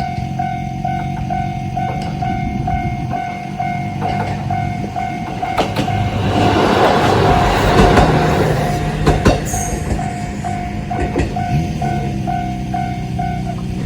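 Japanese level-crossing warning bell ringing about two strokes a second while a JR Kyushu KiHa 200 diesel railcar passes, its engine droning and its wheels clacking over the rail joints, loudest in the middle. The crossing bell stops near the end.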